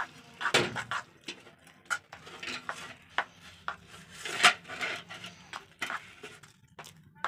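Hand mixing thick wheat-flour batter in a metal bowl, with irregular knocks and scrapes against the bowl.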